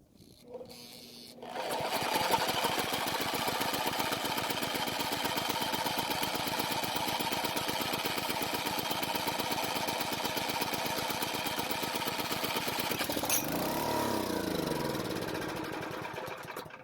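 Powermate generator's small overhead-valve engine, spun over with a drill on starting fluid, fires about a second and a half in and runs steadily for around fifteen seconds. Its speed wavers near the end and the running fades away. Its compression is low, 65 psi, thought to be from stuck piston rings.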